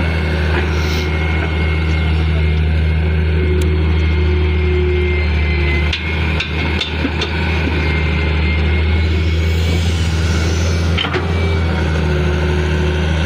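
Heavy earthmoving machine's diesel engine running steadily under load, a strong low drone, with a few sharp metallic knocks about halfway through and again near the end.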